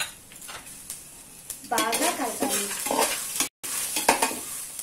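Steel spatula stirring and scraping against an aluminium pot while a tempering of peanuts, spices, chillies and curry leaves sizzles in hot oil.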